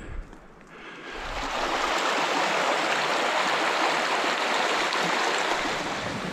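Shallow bush creek running over stones: a steady rush of water that swells in over the first second or so, then holds level.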